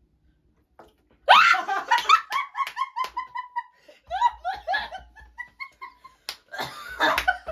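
Group laughter breaking out about a second in after a near-silent pause: rapid runs of short 'ha-ha' laughs from a couple of people, with a few hand claps and one sharp clap near the end.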